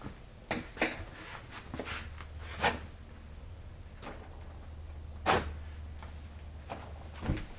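Power door locks of a 2000 Chevrolet Suburban clunking as the lock/unlock switch is worked: several separate clicks and knocks, the loudest about five seconds in, over a low steady hum.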